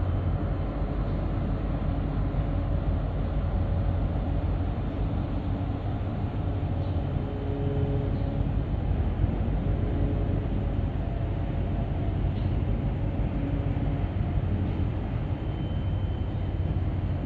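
Steady low rumble of a large container ship's engine and propeller as the ship passes close by, with faint tones coming and going above it.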